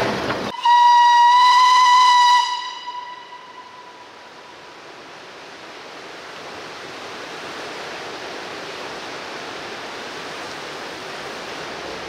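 Narrow-gauge steam locomotive whistle: one long, steady blast of about two seconds, its echo dying away. After it comes the steady rush of a river.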